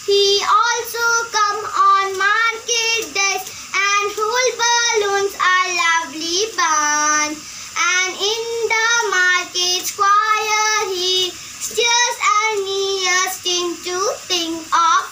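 A young child singing a poem line by line, with held notes and short pauses between phrases.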